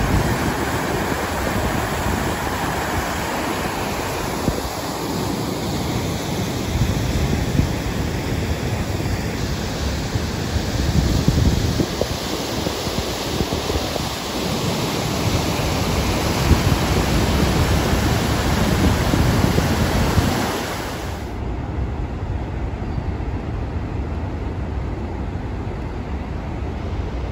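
Rushing water of the Niagara River rapids and the Horseshoe Falls, a steady loud wash of noise, with wind buffeting the microphone in gusts. About three-quarters of the way through the sound turns abruptly duller.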